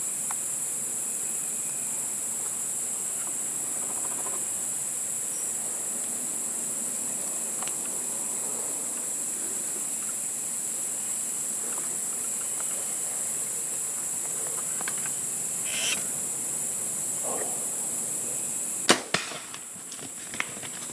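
Crickets and other insects keep up a steady high-pitched drone. About nineteen seconds in comes a single sharp snap of a compound bow being shot, followed by a few fainter knocks.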